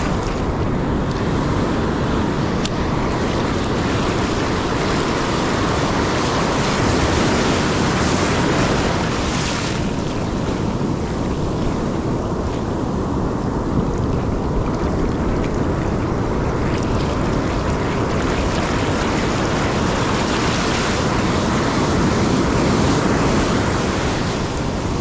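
Ocean surf washing onto the beach in steady waves, with wind buffeting the microphone.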